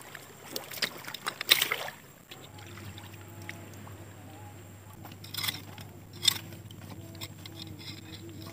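Splashes and sloshing in shallow tidal water, with sharp bursts in the first two seconds and twice more near the middle, over a steady low hum that sets in a little past two seconds.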